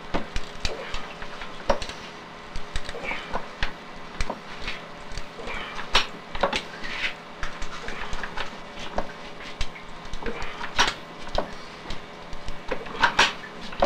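Hands working crushed grape pomace in a wooden basket wine press, refilling it for a second pressing: rustling of the grape skins with irregular wooden knocks and clicks, as wooden pressing blocks are set down on top, louder knocks near the end.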